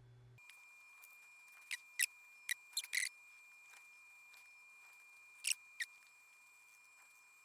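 Small plastic keycaps being handled and rubbed clean, giving short scratchy clicks. They come in a cluster about two to three seconds in and then twice more near the middle, over a faint steady electrical hum.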